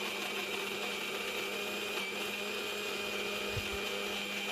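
McCoy electric mixer grinder (Indian mixie) running steadily as it grinds rice flour and jaggery in its steel jar.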